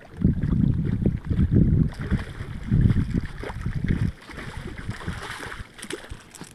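Hooked striped bass splashing and thrashing at the water's surface at the end of the line, from about two seconds in until near the end. Low rumbling on the microphone during the first four seconds.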